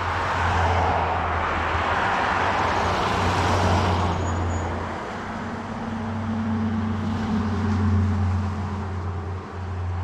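Road traffic: an SUV drives past, its tyre and engine noise swelling over the first four seconds and fading. A second vehicle's low engine hum swells and fades again in the second half.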